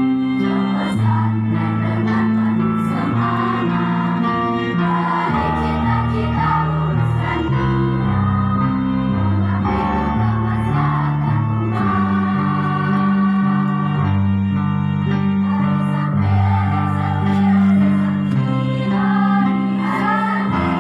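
Girls' choir singing a march over an accompaniment whose bass line moves in steps.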